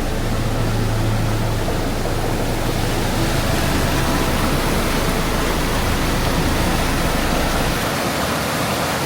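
The 110-metre Ouzoud Falls crashing down: a loud, steady rush of falling water.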